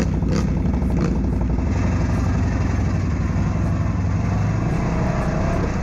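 ATV engine running steadily, with a couple of short knocks in the first second or so.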